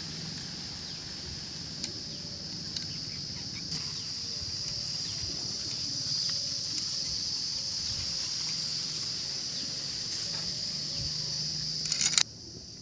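A steady, high-pitched insect chorus in the field, with a few faint clicks early on. Near the end a brief loud crackle comes just before the sound cuts off abruptly.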